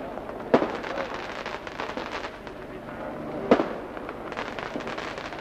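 Firecrackers going off: two sharp bangs, about half a second in and again about three seconds later, among many smaller cracks, over the hubbub of a crowd.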